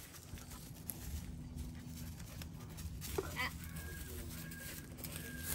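A bird calling: a quick run of short calls about three seconds in, then three short, level whistled notes, over a low steady hum.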